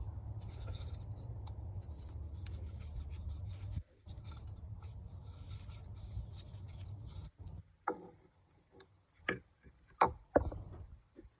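Handling noise from work on the truck's fuel system: a low rubbing rumble for several seconds, then a few sharp clicks and knocks of parts or tools.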